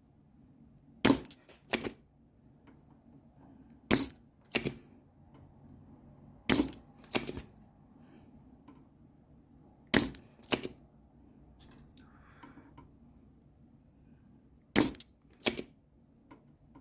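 Spring-loaded desoldering pump (solder sucker) snapping in pairs, two sharp clicks about half a second apart, five times at roughly three-second intervals, as it sucks molten solder off a connector's pins one after another.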